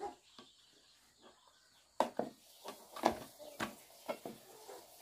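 Plastic rice paddle scraping and knocking against a metal cooking pot as cooked rice is scooped out: a run of short, irregular clicks and knocks starting about two seconds in.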